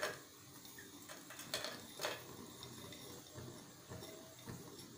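Faint, scattered clicks and taps as pieces of jaggery are scraped by hand from a glass bowl and drop into a steel pot of grated coconut. The sharpest come at the start and twice around one and a half to two seconds in.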